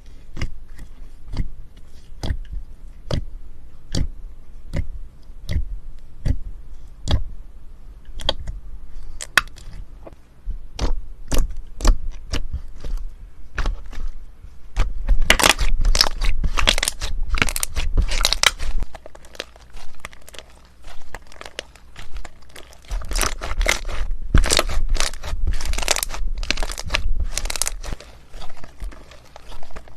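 Crunchy slime being pressed and squeezed by hand, crackling and popping. In the first half the pops come singly, about two a second. From about halfway they turn into louder, dense runs of crackling.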